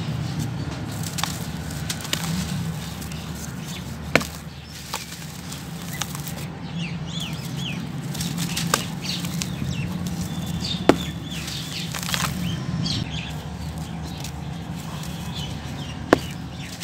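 Set sand-cement chunks crushed and crumbled by gloved hands, a continuous gritty crunching and rubbing with grit trickling down, and three sharp snaps as pieces break off, about four, eleven and sixteen seconds in.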